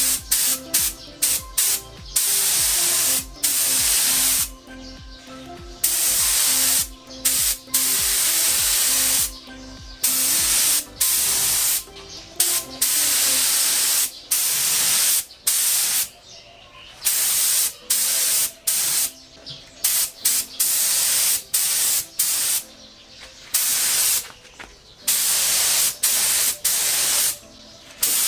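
Compressed-air spray gun hissing in repeated bursts as the trigger is pulled and released, spraying mixed primer surfacer. The bursts are irregular, from brief puffs to passes of about two seconds.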